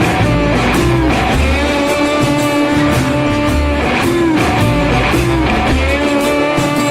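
Background rock music led by guitar, with sustained bending guitar notes over a steady beat.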